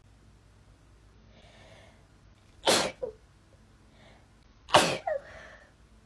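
A woman sneezes twice, about two seconds apart, each sneeze preceded by a faint intake of breath. The sneezes are set off by the nasal swab of a lateral flow test.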